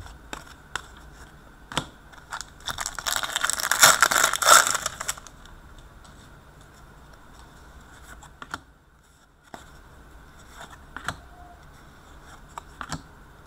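Hockey trading cards and a crumpled foil pack wrapper being handled. There are scattered small clicks and slides as cards are set down, and about three seconds in a couple of seconds of loud crinkling and tearing.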